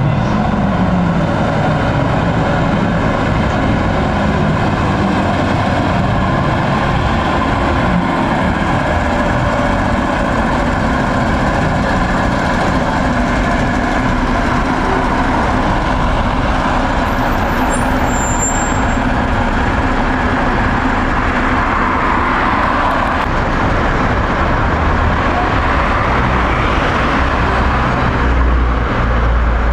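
Diesel engines of old Ikarus buses running with a steady hum, mixed with street traffic. The sound grows louder and rougher in the second half as the buses get moving.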